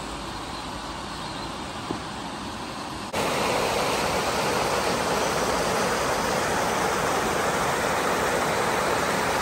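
Steady rushing of river water spilling over a low weir. It jumps suddenly louder about three seconds in and stays loud.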